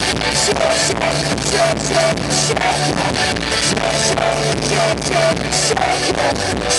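Live band playing loud amplified pop-rock through a festival PA, with a steady, fast drum beat.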